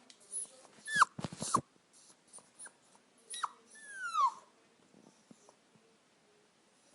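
Puppy whimpering and crying: a few high-pitched whines that fall in pitch, about a second in and again around three and four seconds, the last one drawn out. A few sharp clicks come just after the first whine.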